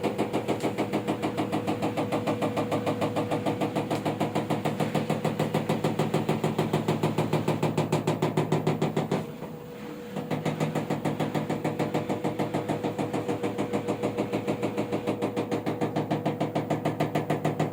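LG washing machine on its spin cycle, with a rapid, even knocking several times a second over the drum's hum. The knocking comes from the pressure-switch hose, which has slipped off its seat and slaps against the housing with each turn of the drum. The sound drops briefly about nine seconds in, then picks up again.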